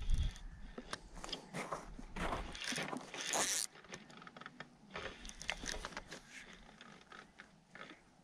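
Irregular crunching and scraping of boots and tackle on granular spring ice while a bottom-fishing line is wound in on a spinning reel. There is a short rush of noise about three seconds in, then only faint scattered clicks.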